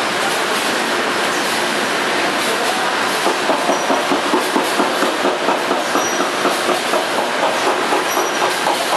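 Automatic detergent packaging line running: the steady clatter of vertical packaging machines and belt conveyors. From about three seconds in, a regular clacking comes in at about three beats a second, the machines cycling as pouches are packed.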